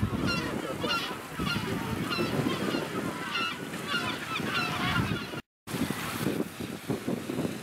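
A Magellanic penguin colony calling: many short, overlapping honking calls over the wash of waves. After a brief cut about five and a half seconds in, the calls mostly give way to wind and waves.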